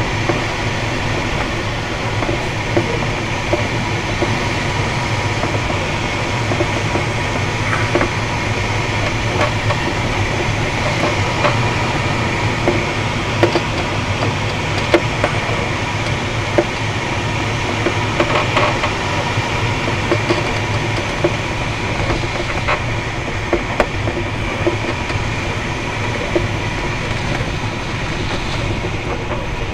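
Steady wind and airframe noise inside a glider's cockpit through the final approach, touchdown and ground roll, with scattered short knocks and rattles.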